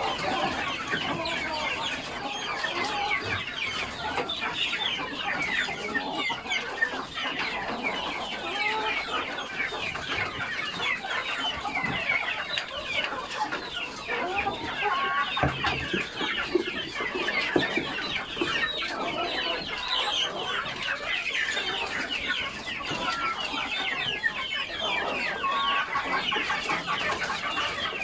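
A flock of backyard chickens clucking and calling over one another without pause, many birds at once, stirred up at feeding time.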